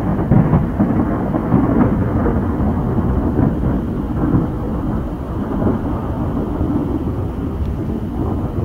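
Thunder rumbling continuously through a tropical storm, with a steady noise of rain underneath.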